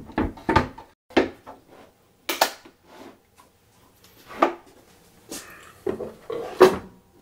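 A magnetic stand being packed into its fitted wooden Bosch case, the case being shut, and the case being set down in a steel tool chest. The result is a string of separate wooden knocks and sharp clicks with short quiet gaps between them.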